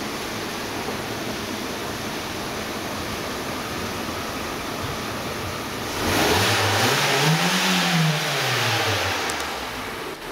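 A steady hiss, then about six seconds in a Peugeot coupé-cabriolet's engine revs once, its pitch climbing and falling back over about three seconds.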